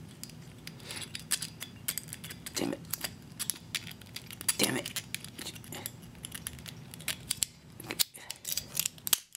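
Metal stapler being handled and opened up, its top and staple magazine clicking and rattling in a long run of small metal clicks.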